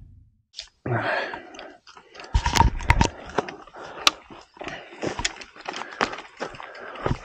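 Mountain bike rolling fast over a dirt forest trail: an irregular clatter of clicks and knocks from the tyres hitting roots and rocks and the bike rattling over them, starting about a second in.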